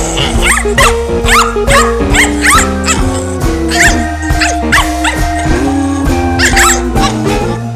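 Pug puppy giving short high yips and play barks, two or three a second, as it play-bites a hand, over background music.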